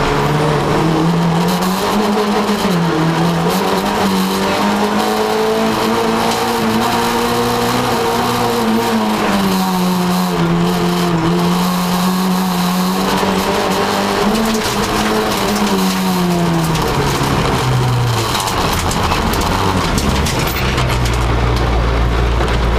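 VW Polo rally car's engine heard from inside the cabin, revving up and dropping back again and again as it is driven hard through the stage's bends. About 17 seconds in, the engine note falls and settles into a lower, steadier running as the car slows.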